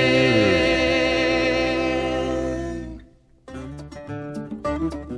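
Background music: a song ends on a long held final chord that fades out about three seconds in, and after a brief pause a plucked string instrument starts picking a new tune.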